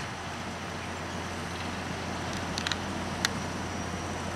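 Diesel locomotive engine running with a steady low drone, with a few sharp clicks about two and a half to three seconds in.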